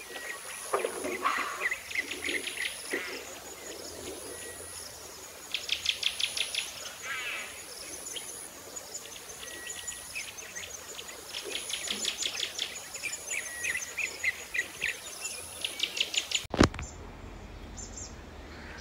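Birds chirping and calling, with rapid trills of about nine notes a second in several runs, over a thin high insect-like whine that comes and goes. About 16.5 s in, a sharp click and the high sounds cut off abruptly.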